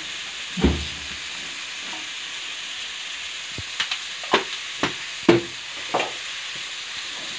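Cabbage and chana dal curry frying in an aluminium kadai with a steady, even sizzle. A few short, sharp clicks and knocks come through the middle part.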